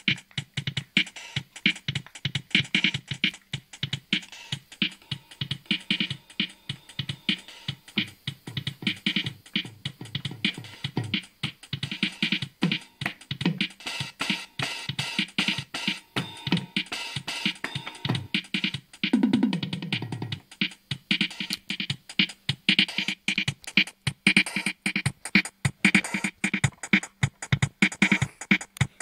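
Yamaha DD-10 drum machine played by hand on its pads: a fast, dense run of electronic drum hits, with one sound sliding down in pitch about two-thirds of the way through.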